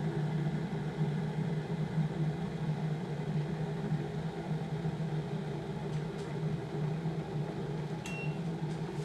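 Instant Pot Zen electric kettle on quick boil, its water heating steadily just short of the boil, a low hum with hiss. A short high beep sounds near the end.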